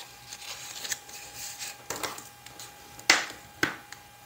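Red cardstock being folded on its score lines and handled on a tabletop: light rustles and clicks, with a few short, crisp scrapes. The loudest come about three seconds in.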